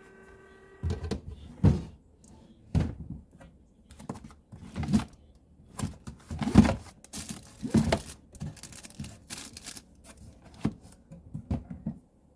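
Paper file box being handled and folded into shape: irregular cardboard thumps, creases and crinkling rustles. A short steady tone sounds in the first second.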